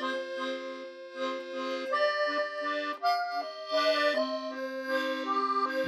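Background music led by an accordion, playing a melody in stepwise notes over held chords.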